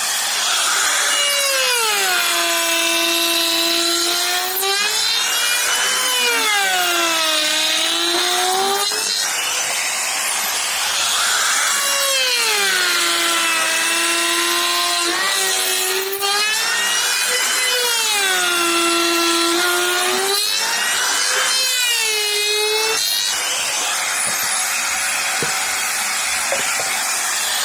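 Electric power tool cutting wood. Its motor pitch sags each time it bites into the wood and rises again as it frees up, about five times, over a steady rasping cutting noise.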